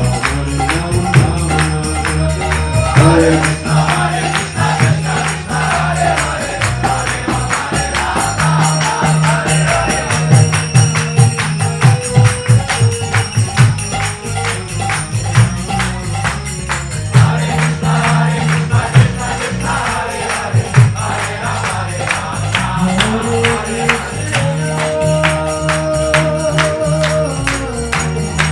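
Devotional music: group singing over a steady, quick beat of jingling hand percussion.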